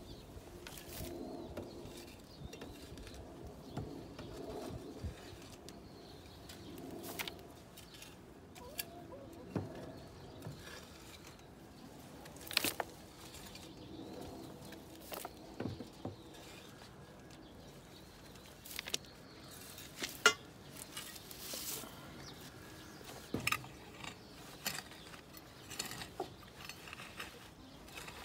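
A hand tool scraping and digging through dry chicken-coop litter of droppings and wood shavings, with irregular scratches and sharp clinks. A long-handled rake scratches through the litter near the end.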